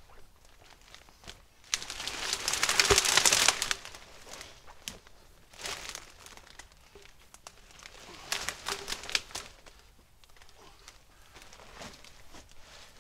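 Dry brush and dead branches rustling and crackling as they are pushed through and pulled aside, with footsteps in leaf litter. The loudest burst comes about two seconds in, a shorter one about eight seconds in.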